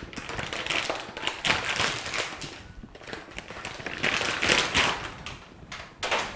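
Plastic peritoneal dialysis solution bag crinkling and rustling as it is handled, in several irregular bursts with a short one near the end.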